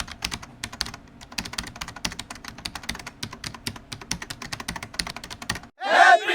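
Fast, irregular key clicks of typing on a computer keyboard, stopping about five and a half seconds in. A loud pitched sound with wavering, bending tones starts near the end.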